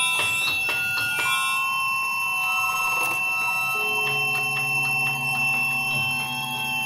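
Live experimental electronic music: several steady, bell-like electronic tones held together. A flurry of sharp clicks sounds in the first second or so, and a low hum comes in about four seconds in.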